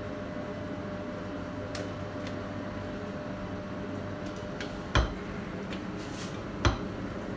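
Silicone spatula scraping thick apple purée out of a stainless-steel blender beaker into a bowl, with small soft clicks and two sharp knocks, one about five seconds in and one a second and a half later. A steady low hum runs underneath.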